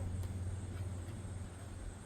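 A low, steady rumble that fades a little near the end.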